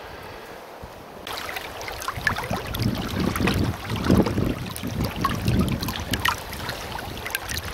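Lake water lapping and sloshing in the shallows around a floating log, with irregular small splashes and some wind buffeting on the microphone.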